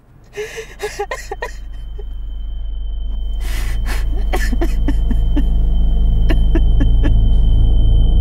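A man sobbing and gasping in short, broken breaths over a low droning film-score rumble that swells steadily louder, joined about a second and a half in by a high, steady ringing tone.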